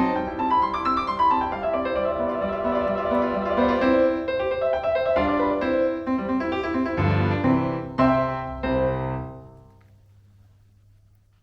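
Solo piano playing classical background music; a final chord about eight seconds in rings away to near silence.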